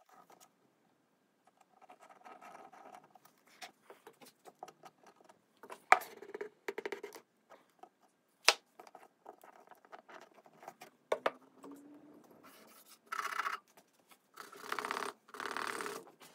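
Hand tools knocking and tapping on a veneered wooden tabletop while glued veneer patches are worked down with a hammer: scattered sharp knocks, the loudest about 6 and 8 seconds in. Near the end come a few short bursts of scraping and rubbing on the wood.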